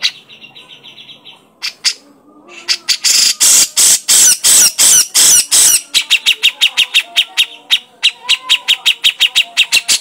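Grey-cheeked bulbul (cucak jenggot) calling: a fast run of faint ticking notes, then about three seconds of loud, harsh chattering, then a quick series of sharp repeated notes, about five a second.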